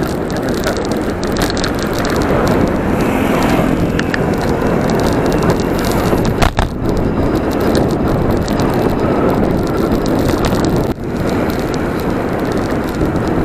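Bicycle riding on asphalt, heard from a camera mounted on the bike: a loud, continuous rushing road noise from the tyres, with many small rattling clicks from the bike and mount.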